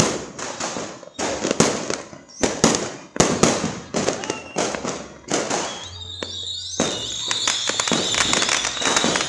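New Year fireworks and firecrackers going off all around: a rapid series of sharp bangs, each with an echoing tail. From about six seconds in, the bangs give way to dense crackling over a steady high whistling tone.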